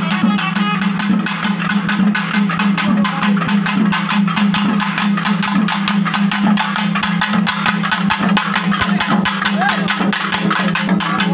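A South Indian temple-festival band playing: fast, dense drumming over a steady, unbroken low droning tone, with the reed pipes (nadaswaram) heard faintly above it.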